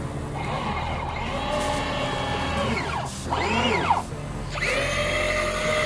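Small electric motors of a homemade robotic excavator whining as they drive its movements. The pitch glides up as the motors start, holds steady, then swoops up and back down around three to four seconds in before settling into a steady whine again.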